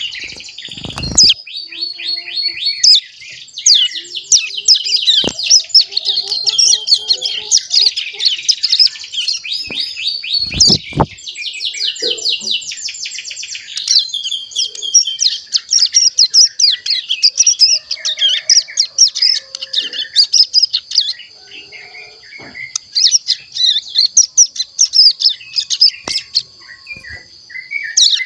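Young ciblek gunung, a mountain prinia chick about a month old, twittering without pause: its first practice song (ngeriwik), a dense string of quick high chirps and trills. A few short knocks cut in, about a second in and again around eleven seconds.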